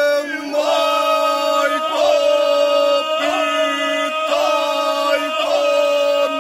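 Men singing ganga, the traditional polyphonic folk song of the Imotski region, sung by a small group. They hold long, loud notes, breaking for a new syllable about once a second.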